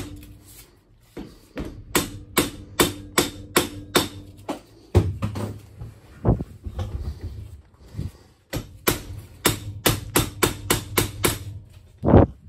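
Soft-faced mallet tapping a dirt bike's upper triple clamp down onto the fork tubes, in quick runs of sharp knocks about three to four a second with a pause in the middle and a heavier blow near the end. The pinch bolts are loose, so the clamp is being driven down the fork legs to set how far the forks protrude.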